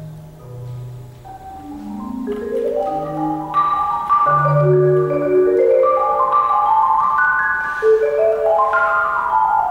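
Solo marimba: soft low notes at first, then quick runs of notes up and down the bars that build and grow much louder about four seconds in.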